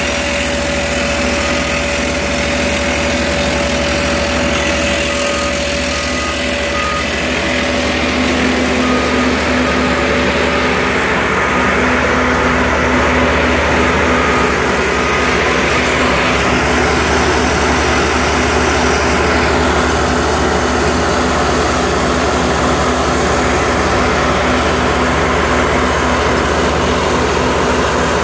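Soosan hydraulic drill rig running: a steady, loud machine sound of engine and hydraulics, getting slightly louder about eight seconds in.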